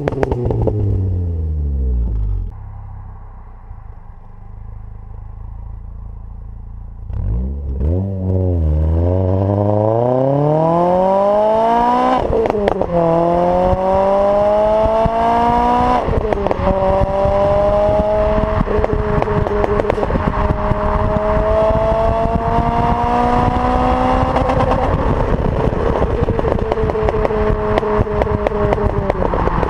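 Renault Clio RS 197's 2.0-litre four-cylinder engine through a decatted Scorpion resonated cat-back exhaust. The revs fall to idle, it blips once, then it accelerates hard, the pitch climbing through each gear with two upshifts. It lifts off near the end.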